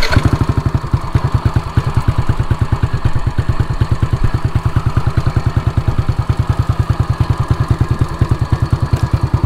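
Yamaha NMAX scooter's single-cylinder four-stroke engine idling steadily with an even, rapid pulse, just after catching. It runs with the taillight fuse pulled, because that fuse serves only the taillight and panel.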